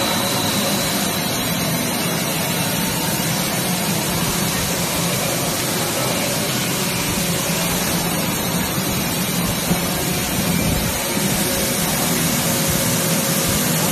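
ABS plastic pelletizing line running: a steady machine hum under a constant hiss, with no pauses or knocks.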